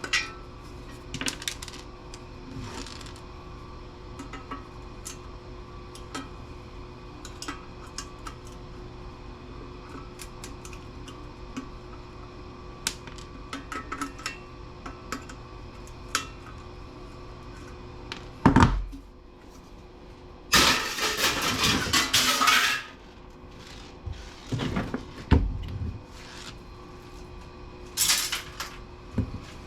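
Small metal parts from PC power supplies clinking, being set down and knocking together as they are taken apart, with a louder two-second clatter about two-thirds of the way through.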